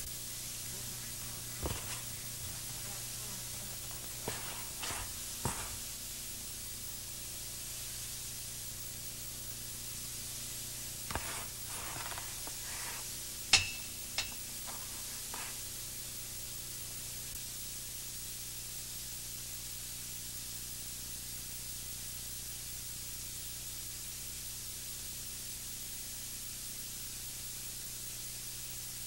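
Steady background hiss with a low hum, broken by a handful of scattered knocks and clicks in the first half, the loudest about halfway through.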